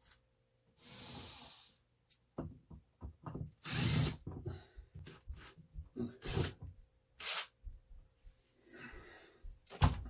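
Short runs of a cordless drill driving screws into a wooden wall, among a string of knocks and clicks from handling. A sharp knock comes just before the end.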